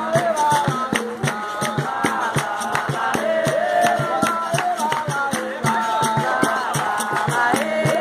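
Capoeira roda music: voices singing over a berimbau and percussion, with a quick, steady beat of claps or drum strikes.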